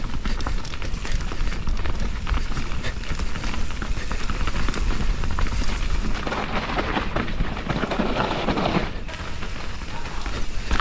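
Mountain bike riding down a dirt trail, heard from a helmet camera: tyres rolling over dirt and roots, the bike clattering and rattling, and wind rumbling on the microphone. About six seconds in there is a louder scraping stretch of about three seconds, tyres sliding or scrubbing through loose ground.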